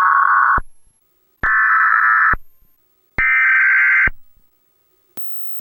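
Emergency Alert System SAME header: three bursts of harsh, buzzing digital data tones, each about a second long and about a second apart, each fading away in a short echo, the third slightly higher in pitch. A faint click near the end.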